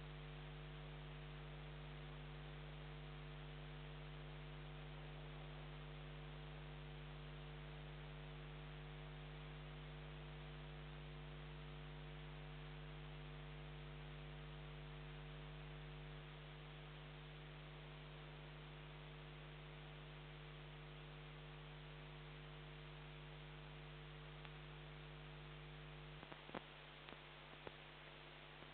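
Steady electrical mains hum with hiss: the security camera's own audio noise floor, with no train audible. The hum drops slightly twice, and a few faint clicks come near the end.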